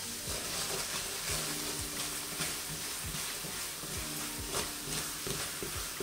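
Almonds, sugar and water sizzling in a hot frying pan as a wooden spoon stirs them, with scrapes and clicks of the spoon and almonds against the pan. The water has just gone onto the hot sugar and almonds and is starting to steam: the first stage of cooking the sugar syrup for candied almonds.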